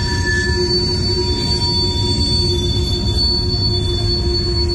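Freight train of covered hopper cars rolling past: a steady low rumble of steel wheels on rail, with several high, steady wheel squeals held over it.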